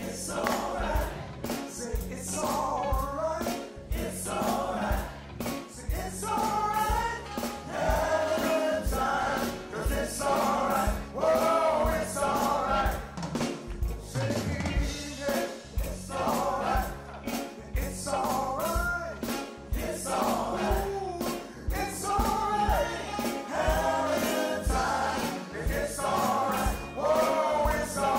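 Singers with a live band performing a gospel-style song over a steady beat.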